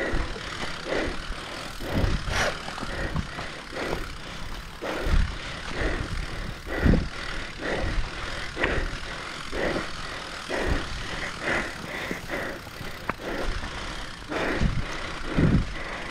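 Mountain bike rattling and knocking over rough trail at race pace, with irregular thumps from the wheels hitting bumps and a constant rush of wind on the mounted camera's microphone.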